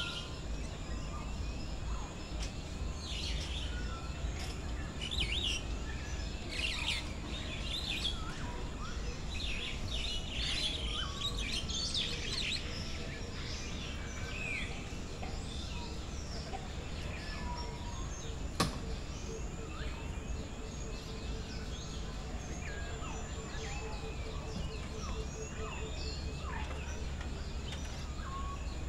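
Many birds chirping and calling, busiest in the first half, over a steady low rumble. In the second half a fast run of repeated low notes, and a single sharp click about two-thirds of the way through.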